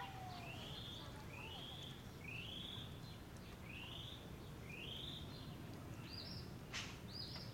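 A songbird repeating a short, rising whistled note about once a second, switching to a quicker double-arched note near the end, over a faint, steady low background hum. A single sharp click sounds near the end.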